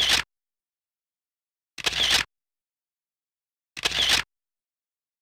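An added transition sound effect repeated three times, about two seconds apart. Each is a short, identical noisy burst of about half a second that swells and cuts off suddenly, with dead silence between.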